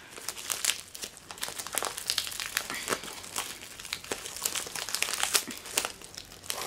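A mailing envelope crinkling as fingers pick and pull at its edge to open it by hand: a dense run of irregular small crackles.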